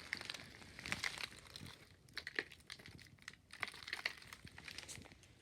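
Gift-bag packing material being handled, crinkling and rustling in irregular bursts.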